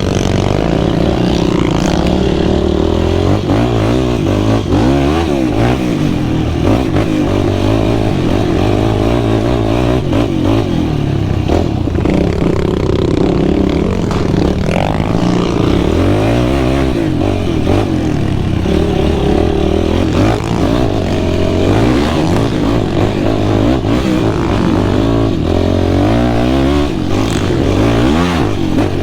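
Sport quad (ATV) engine running loud while riding, revving up and falling back again and again as the throttle is worked, with occasional clatter.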